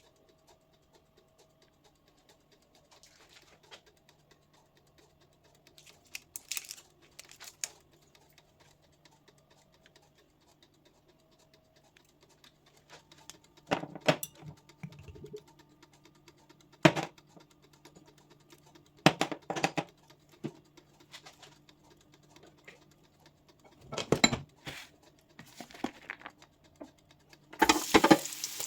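Kitchen clatter: scattered knocks and clinks of utensils and cookware, sharper strikes from the middle on, over a steady low hum. Near the end a frying sizzle starts suddenly as food goes into the hot pan.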